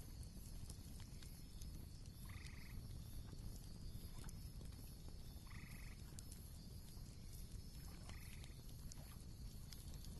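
Faint night ambience: a frog croaking three times, short calls about three seconds apart, over a low rumble with scattered small crackles.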